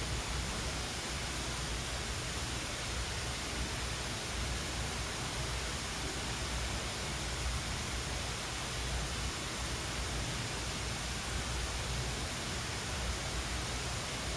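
Steady, even hiss of background noise with no distinct sound and no rhythm in it.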